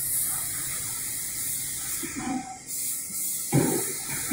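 VMC850 vertical machining center milling a metal plate with an end mill: a steady high hiss of cutting, with a louder, rough burst of cutting noise twice near the end.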